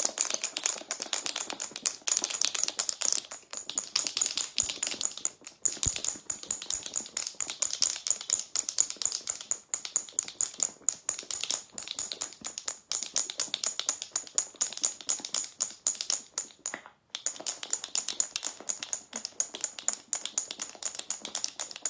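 Two marbles rattling and clicking against the sides of a jar of cream shaken hard by hand, a rapid steady clatter with two short breaks. The cream is still thin and liquid, so the marbles knock about freely; this is the early stage of making butter in a jar.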